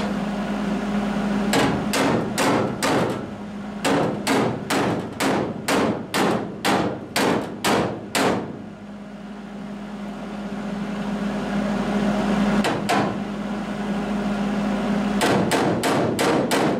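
MIG welder laying short tack-weld bursts on a sheet-metal floor patch panel, stitching it in with about two bursts a second for several seconds. After a pause comes a single burst, then a quick run of about five near the end, all over a steady low hum.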